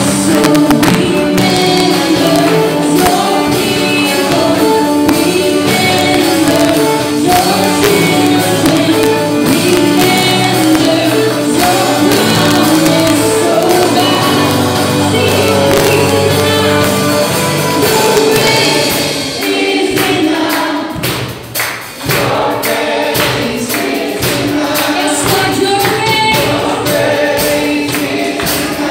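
A live church worship band playing a contemporary worship song: several voices singing together over guitars, keyboard and drums. About two-thirds of the way through, the band drops back briefly to a few drum hits, then the full sound comes back in.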